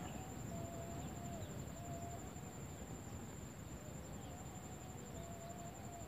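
Steady high-pitched insect trill in forest ambience, with a low rumble underneath and a faint wavering lower tone coming and going.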